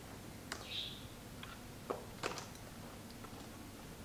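A few faint, sharp clicks and ticks of a flathead screwdriver prying at a Dell G5 laptop's plastic bottom cover as its clip locks are worked loose. The two sharpest clicks come about two seconds in.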